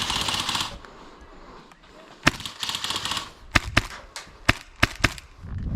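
Airsoft gunfire: a short rattling burst near the start, another around the middle, and a string of single sharp shots in the second half.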